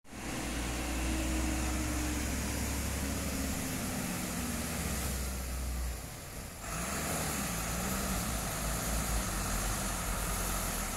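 Heavy diesel truck engines pulling up a hill: a steady low drone whose pitch slowly falls over the first few seconds, a brief drop in level about six seconds in, then a wavering engine note as the trucks come closer.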